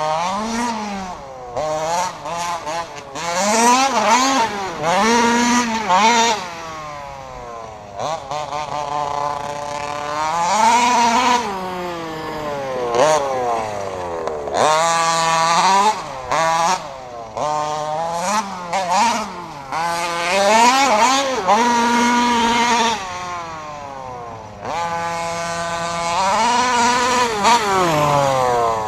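RCMAX 46cc two-stroke petrol engine of a 1/5-scale Losi RC truck being driven in bursts of throttle: its pitch climbs and falls over and over, every second or two, dropping back to a lower steady note between bursts.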